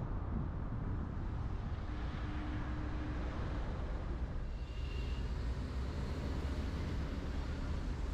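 Steady road and traffic noise from a car driving along a city avenue: a continuous low rumble of tyres and engine. A faint high tone is heard briefly about five seconds in.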